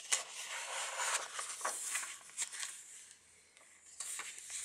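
Paper rustling and handling as the pages of a thick handmade paper junk journal are turned, with a few sharp clicks. It goes quiet for about a second before more rustling near the end.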